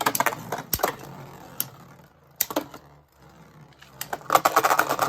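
Spinning Beyblade Burst tops, Dusk Spryzen against Myth Dragon, knocking together in a plastic stadium: scattered sharp clicks, then a fast clatter of clicks about four seconds in, the loudest part, as the battle ends with Myth Dragon defeated.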